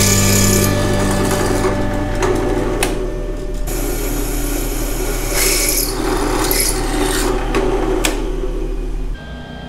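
Benchtop drill press running as its bit drills into a metal bar, with a steady motor hum and a rough cutting noise that comes and goes as the bit bites. The sound stops shortly before the end.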